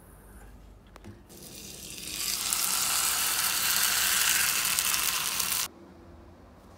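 Thick beef steak sizzling as it sears over high heat: the sizzle swells in about a second in, runs loud, then cuts off suddenly near the end.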